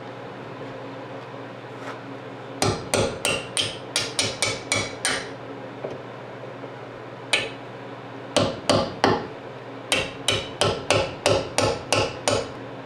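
Hammer striking metal in quick runs of sharp blows, about twenty in all, tapping a part home in a GMC Squarebody door hinge until it fits tight.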